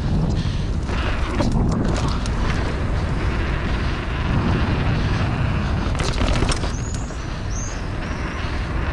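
Mountain bike riding at speed: wind rushing over the microphone and the tyres rolling over grass, then paving blocks. There are a few sharp clicks or knocks about six seconds in.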